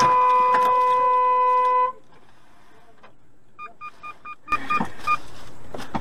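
A loud, steady pitched tone, like a held car horn or alarm, that stops abruptly about two seconds in. It is followed a second and a half later by a quick run of about six short electronic beeps, and a rush of noise starts near the end.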